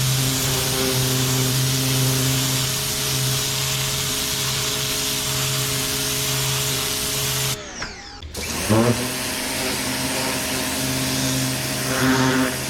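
Westinghouse 2100 PSI electric pressure washer running steadily, its motor drone under the hiss of the spray. About seven and a half seconds in it winds down and stops for under a second, then spins back up with a rising whine.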